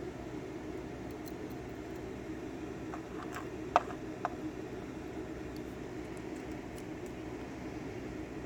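Small metal pin-tumbler lock parts clicking as they are picked out of the cylinder: a few light clicks about three to four seconds in, one sharper than the rest, over a steady background hum.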